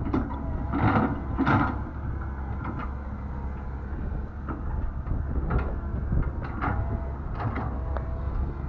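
Komatsu PC120-8 excavator's diesel engine running steadily while the machine works, with two loud clanks about a second in and several shorter knocks and clanks after.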